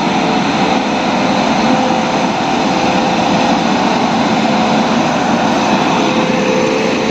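Indian Railways electric locomotive hauling passenger coaches past at close range: a loud, steady rush of running gear on the rails with a steady hum from the locomotive.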